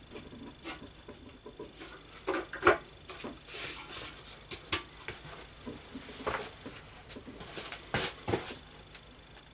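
Handling noise as a motorcycle fuel tank is lowered onto the frame and settled in place: scattered light knocks, scrapes and clothing rustle, the sharpest knocks about two and a half seconds in and again near eight seconds.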